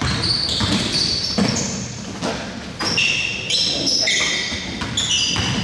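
Basketball game in a gym. Sneakers squeak on the court in many short, high squeals, a ball bounces, and players' voices can be heard faintly. It all echoes in the large hall.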